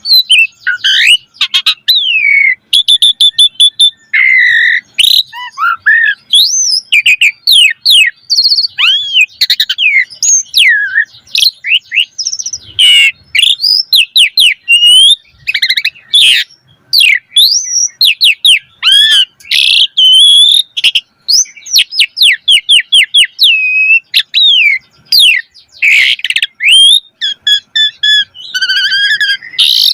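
Asian pied starling (jalak suren) singing loudly and without pause. The song is a fast, varied string of rising and falling whistled sweeps, short steady whistles, rapid repeated notes and sharp clicks, full of mimicked fill-in phrases.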